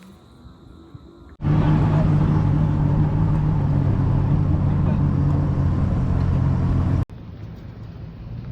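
Bass boat's outboard motor running steadily at speed, with a rush of wind and water noise. It cuts in abruptly about a second and a half in and cuts out shortly before the end, with quieter engine rumble on either side.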